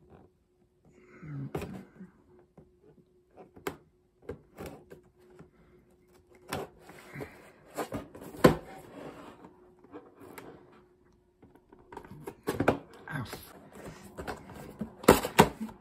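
Cardboard toy packaging being handled and opened: scattered taps, knocks and scraping rustles of the box and its flaps, with short quiet gaps between them.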